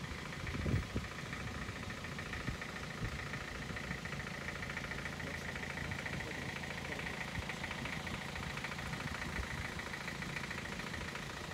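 Car engine idling steadily with a low, even hum; a short thump about a second in.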